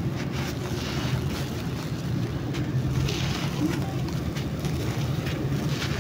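A clump of dry sand and cement crushed and crumbled between the hands, giving grainy crackles and the hiss of loose sand pouring down, in several waves. A steady low hum runs underneath.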